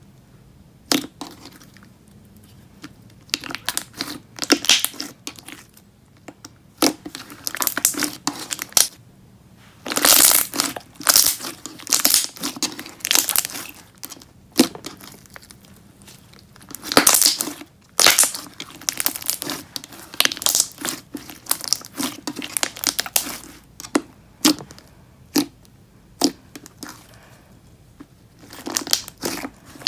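Thick, glossy slime with beads mixed in, squished, pressed and stretched by hand. It gives irregular bursts of crackling and squelching with sharp little pops, with short quiet gaps between.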